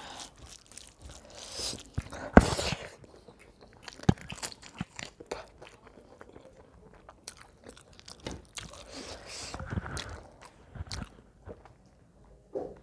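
A person biting and chewing crunchy food, with irregular crunches and crackles; the loudest, sharpest crunch comes about two and a half seconds in.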